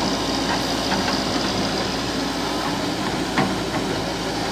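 Excavator engine running steadily under work, with a few light knocks, the sharpest about three and a half seconds in.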